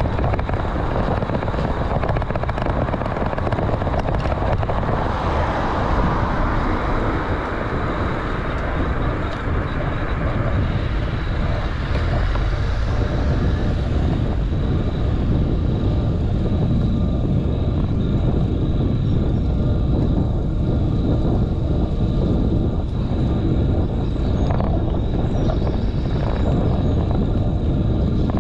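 Steady wind buffeting and road rumble on the microphone of a handlebar-mounted GoPro Hero 8 on a moving bicycle.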